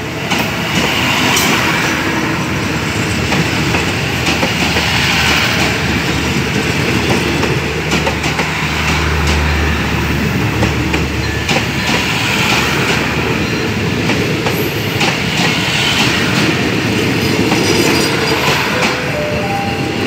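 Passenger coaches of an express train rolling past close by as it pulls out of the station, wheels clacking over the rail joints in a steady rumble. A low drone swells and fades about halfway through.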